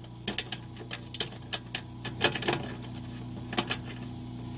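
Irregular small clicks and scrapes of a cable connector fitting being unscrewed by hand from an electrical box, over a steady low hum.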